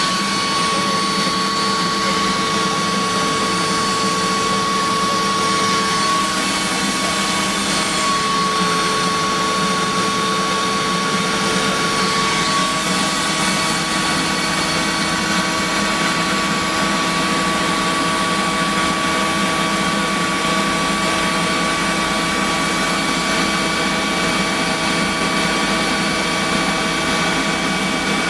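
Mi-2 helicopter's GTD-350 turboshaft engine running steadily after start, heard from the cockpit: a loud, even turbine whine with several steady tones, a few of which shift slightly partway through.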